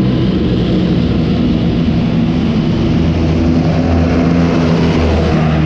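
M1 Abrams tanks driving past on a paved road, their gas-turbine engines running with a steady, loud rumble.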